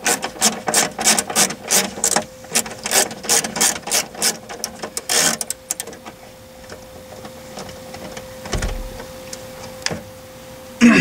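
Hand socket ratchet clicking rapidly, about five clicks a second, as a 7 mm bolt holding the instrument cluster is backed out; the clicking stops about five seconds in. Later there is a single dull knock.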